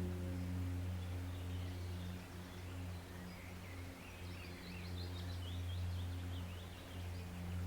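Small birds chirping and trilling in quick high notes, most busily from about four to seven seconds in, over the steady low rumble of a woodland stream.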